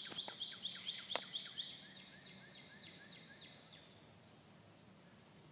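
A bird calling: a rapid series of short, high, downward-slurred notes, about four a second, growing fainter and dying away after about four seconds. A single sharp click sounds about a second in.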